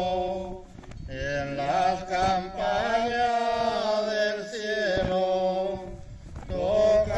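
Voices singing a slow, chant-like religious hymn in long held notes, with short breaks about a second in and near the end.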